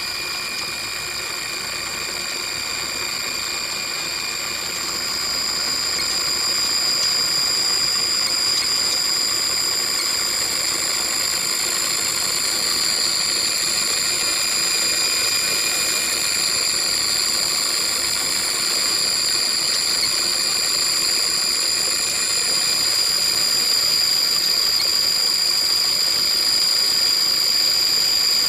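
Scale-model Volvo L220E wheel loader's electric motors and gearing running, a steady high-pitched whine made of several tones. It gets louder about five seconds in and then holds steady.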